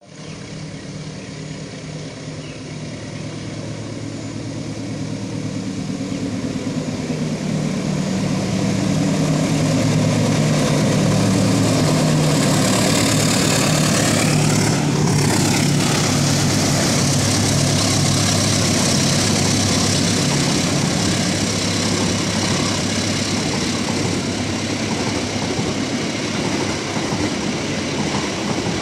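A diesel locomotive hauling a passenger train approaches, its engine growing steadily louder. It passes about halfway through with a sweep in pitch, and the coaches then roll by with a steady rumble of wheels on rails.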